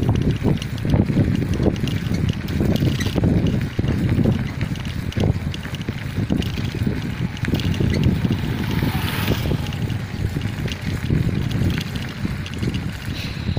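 Wind buffeting a moving microphone: a low, uneven rumble, with a brief hiss about nine seconds in.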